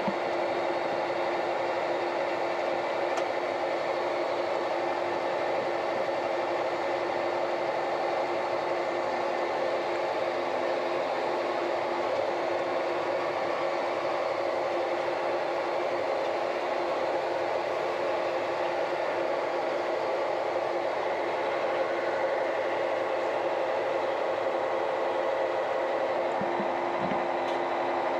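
Tractor engine and drivetrain running steadily, heard from inside the cab: an even drone with a steady whine over it.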